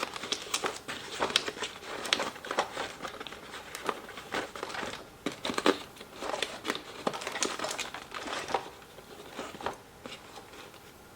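Plastic packaging crinkling, with irregular clicks and crackles as the twist-lock plastic screw fasteners holding a toy fire truck in its box are turned loose.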